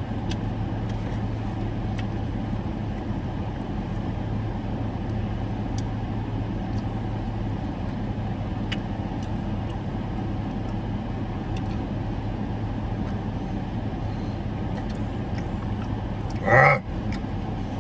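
Steady low hum of a car idling, heard from inside the cabin, with a few faint clicks. A short, loud vocal noise comes near the end.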